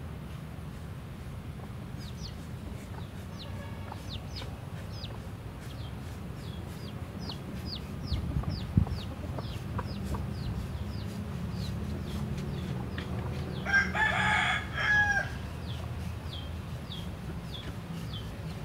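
A rooster crows once, about two-thirds of the way through, a call of about a second and a half. Short high chirps repeat about twice a second over a steady low rumble, and a single sharp knock comes about halfway through.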